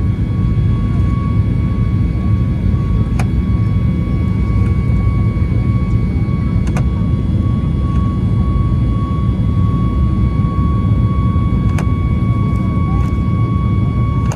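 Inside the cabin of a Boeing 737 MAX 8 climbing after takeoff: the steady low roar of the CFM LEAP-1B engines and the airflow, with a steady whine over it. Three faint clicks come through at intervals.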